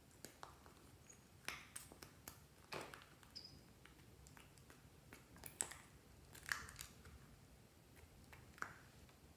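Faint clicks, crackles and small squelches from a plastic squeeze tube being pressed out into a glass dish of slime ingredients, about a dozen short sounds spread unevenly.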